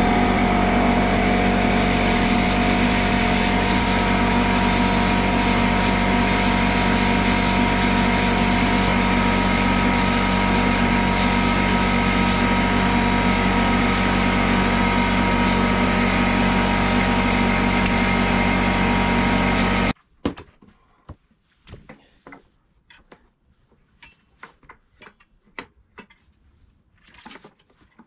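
A loud, steady machine drone holding the same pitch for about twenty seconds, then cutting off suddenly, followed by faint scattered clicks and taps.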